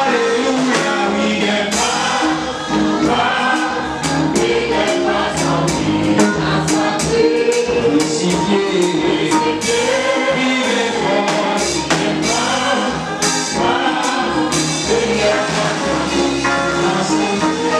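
Gospel worship song: a man sings a melody into a microphone over a steady percussion beat.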